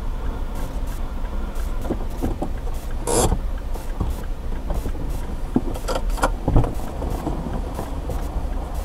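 Dash-cam audio from inside a stopped car: a steady low engine rumble, with scattered knocks and clicks and one sharper rustling burst about three seconds in.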